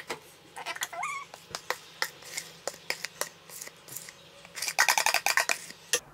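Oats being scraped and knocked out of a plastic container into a ceramic bowl: scattered clicks and knocks, then a quick run of rapid taps just before the end.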